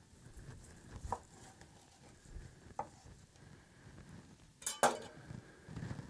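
Knife slicing through a cooked tomahawk steak on a wooden cutting board, with a few light knocks of the blade on the board. About five seconds in comes a louder, sharper clack as the knife is set down on the board.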